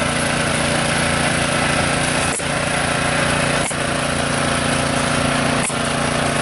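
Tractor engine running steadily, with three brief dropouts in the sound.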